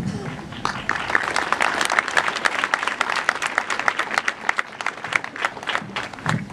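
Congregation clapping in welcome. The clapping builds up about a second in, runs as a dense run of sharp claps, and stops just at the end.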